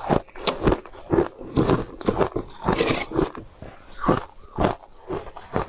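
A person biting and crunching pieces of frozen ice, with crunches coming about twice a second.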